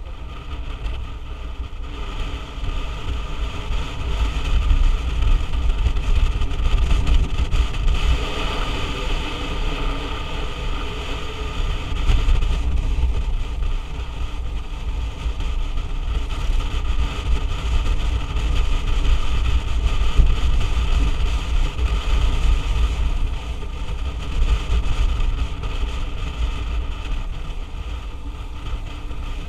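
Wind rushing over the microphone while riding a motorbike, a steady low rumble with the bike's engine running underneath, louder in stretches.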